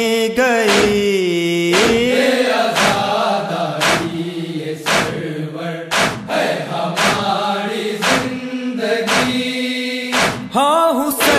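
A noha chanted as a lament over the rhythmic chest-beating of matam, with a slap about twice a second under the drawn-out sung lines.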